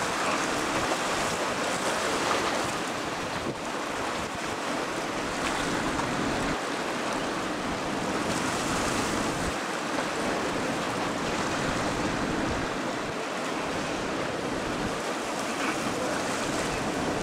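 Waves breaking on a river-mouth bar, a steady rushing wash of surf, with wind buffeting the microphone.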